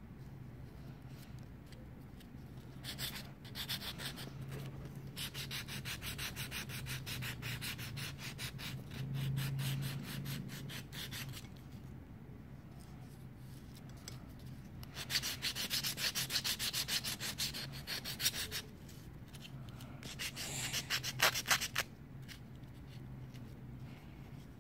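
A nail file rasping back and forth over a hammered aluminium foil ball in quick, even strokes, in four spells with short pauses between. The ball is being filed smooth and shiny.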